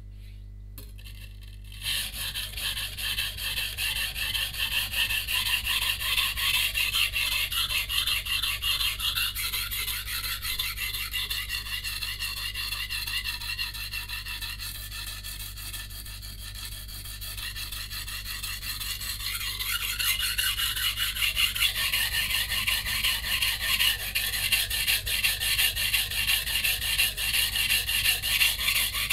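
A VG10-core santoku's steel being ground on a coarse 180-grit whetstone: fast back-and-forth rasping strokes, starting about two seconds in, easing off somewhat in the middle and picking up again near the end. This is coarse re-setting of the edge on the knife's second side, working up an even burr after the chips have been ground out.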